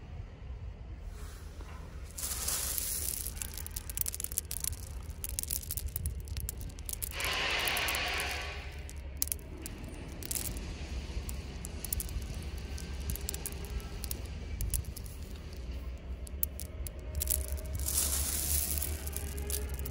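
Red marble gravel chippings (Rosso Verona, 12–16 mm) clicking and rattling against each other as a hand scoops them up and lets them fall back onto the pile. There are denser rushes of stones about two seconds in, around seven seconds and near the end.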